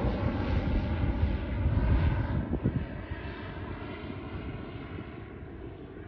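Pilatus PC-12/47's single PT6A turboprop engine and propeller climbing out after takeoff: a steady drone of several tones that fades, growing quieter from about halfway in as the aircraft moves away.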